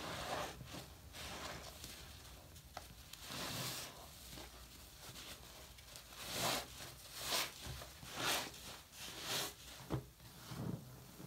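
Sudsy sponge squeezed by hand in a sink of foamy mouthwash lather, giving wet squishing and the hiss of crackling foam. The squeezes are spaced out at first, then come about one a second and louder in the second half.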